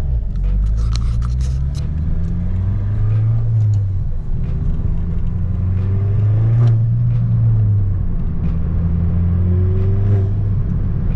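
Volkswagen MK6 GTI's turbocharged four-cylinder engine under way, its note climbing and then dropping a few times as the car accelerates and changes gear.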